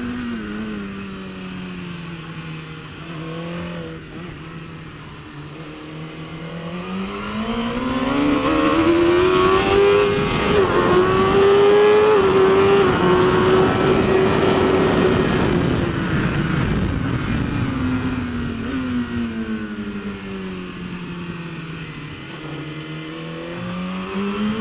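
Onboard sound of a racing motorcycle engine on track: the engine note holds low, climbs steadily as the bike accelerates, stays high with loud wind rush, then falls away as the rider rolls off, and starts climbing again near the end.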